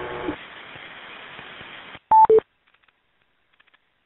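Hiss of an old VHF police radio channel as a transmission drops. About two seconds in comes a short two-note radio beep, a higher tone stepping down to a lower one, and then the audio goes dead silent.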